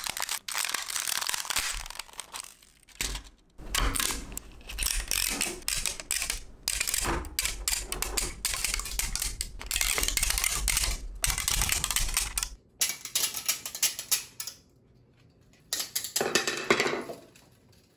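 3D-printed plastic support material cracking and snapping as it is peeled and torn off printed parts, in irregular runs of crackling with short pauses between pulls.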